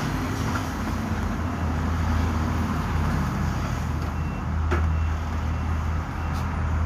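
Steady low drone of a running vehicle engine over a background of noise, with one sharp click a little before the five-second mark.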